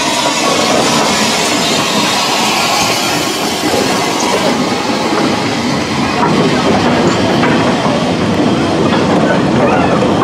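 Small steam tank locomotive passing close with a hiss of steam, then a train of four-wheeled goods wagons rolling slowly by, wheels clattering over the rail joints. The hiss fades after the first few seconds, leaving the wagons' rumble and clank.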